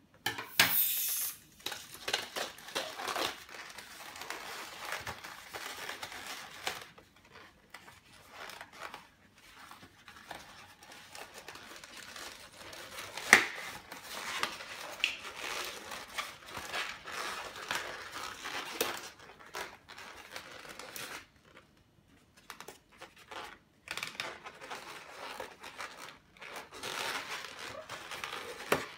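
A 360Q latex modelling balloon being twisted and locked into bubbles by hand, with the latex rubbing and crinkling irregularly. A sharp snap comes about halfway through.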